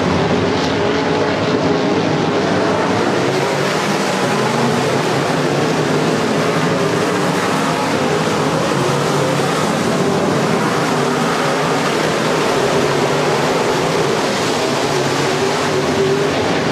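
A pack of IMCA Modified dirt-track race cars running their V8 engines hard around the oval, a dense, steady, unbroken engine noise from several cars at once.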